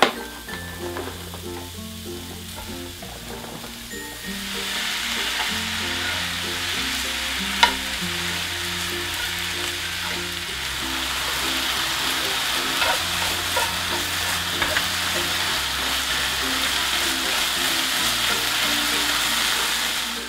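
Food frying in a hot pan: a steady sizzle that starts about four seconds in and holds on, with a sharp click of a utensil about three seconds after it begins.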